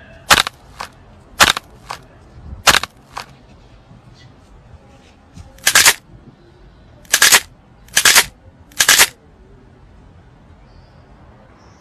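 A series of sharp, loud cracks, ten in all. The first three come in quick pairs, a loud crack and a fainter one about half a second later, within the first three seconds. Four single cracks follow between about six and nine seconds in.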